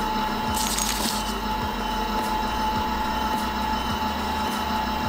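Fuji Paudal Dome Gran GR149 extrusion granulator running empty: a steady motor whine and hum as the screw turns, with a light knock about twice a second. A brief hiss about half a second in.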